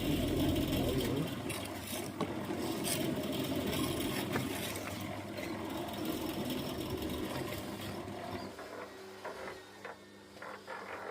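A small engine running with a rapid, even chatter, loudest at first and fading away after about eight seconds.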